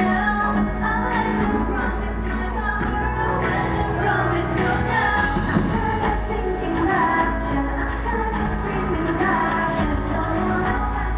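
A woman singing a pop song over a band backing track with a steady bass, played live through the PA at a sound check.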